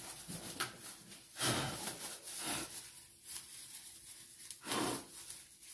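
Thin clear plastic disposable gloves rustling as they are pulled onto the hands, in a few short crinkles.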